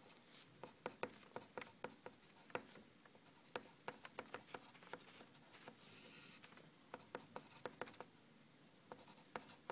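Pencil writing numbers and symbols on squared paper: faint, irregular taps and short scratches of the pencil strokes.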